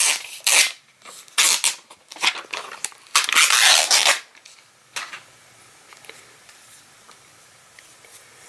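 Protective plastic film being peeled off the back of a tablet, in a few short crackling rips and one longer peel about three seconds in. After that comes quiet handling with a light tick.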